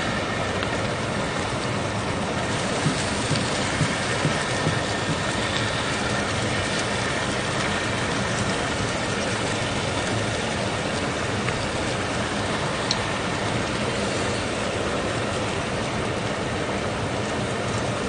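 Pork belly slices sizzling on a hot griddle pan over a portable gas stove, a steady frying hiss, with a few light clicks of chopsticks on the pan a few seconds in.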